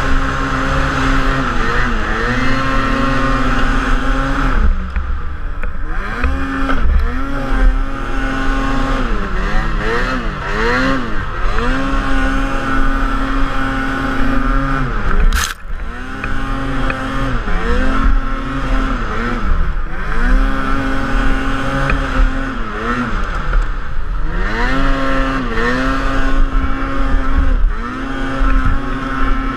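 Ski-Doo snowmobile's 800cc two-stroke engine under hard throttle, holding high revs and dropping off, then climbing back up every few seconds as the throttle is eased and reapplied on the climb. A single sharp knock comes about halfway through.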